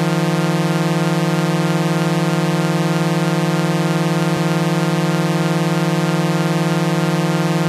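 A loud, steady electronic buzzing tone held on one low pitch without change, with a single brief click about four seconds in.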